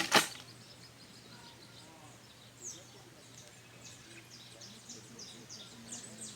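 Two sharp knocks right at the start, then birds calling in quick, high chirps that sweep downward, repeating more and more densely toward the end.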